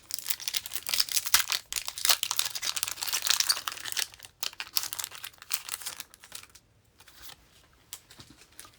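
Foil wrapper of a Pokémon TCG booster pack being torn open and crinkled, a dense crackling for about four seconds, then only faint scattered handling clicks.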